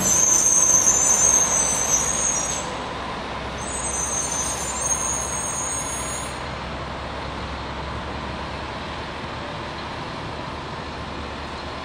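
Garbage truck's diesel engine running as it rolls slowly through the intersection and away, loudest at first and then fading, with a high-pitched squeal coming and going over the first six seconds.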